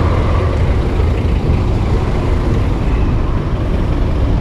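Steady low rumble of motor traffic (cars, trucks and buses) in a congested road, picked up by a cyclist's chest-mounted action camera.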